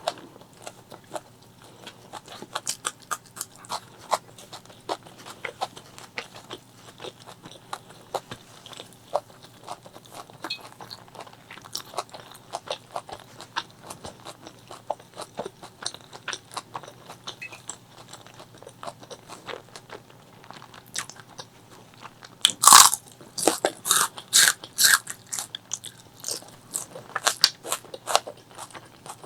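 Close-miked chewing of chicken liver, gizzard and rice: a steady run of short wet clicks and crunches. A burst of louder crunching comes about three-quarters of the way through.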